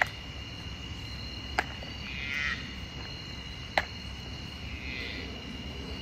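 Woodland animal chorus: a steady high-pitched drone, with a pulsed trilling call about two seconds in and again near five seconds. Sharp clicks come roughly every two seconds and are the loudest sounds.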